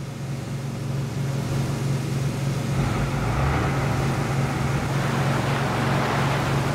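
Lifeboat's diesel engines running at speed with a steady low drone. The rush of water from the bow wave and wake grows louder about three seconds in.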